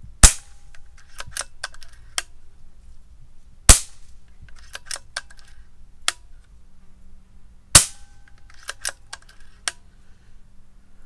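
Daystate Huntsman Revere Safari Edition, a regulated side-lever PCP air rifle without a silencer, fired three times about four seconds apart, each shot a sharp crack. Between shots come the light clicks of the side-lever being pulled back and pushed forward, indexing the magazine for the next pellet.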